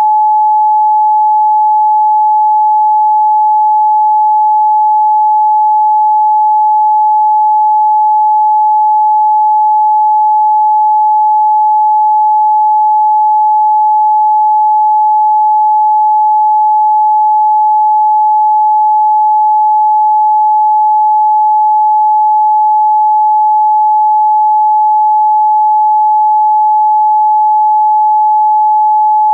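A pure 855 Hz sine-wave test tone, held loud and steady at one unchanging pitch.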